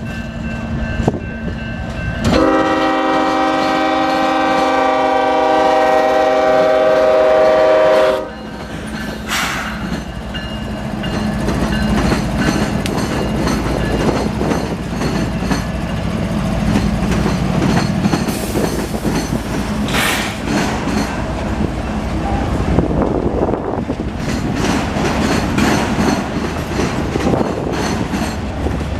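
Diesel freight locomotive's air horn sounding one long chord for about six seconds and then cutting off sharply. After it, the locomotives and auto rack cars of a CSX train pass with a rising heavy rumble and the clicking of wheels over rail joints.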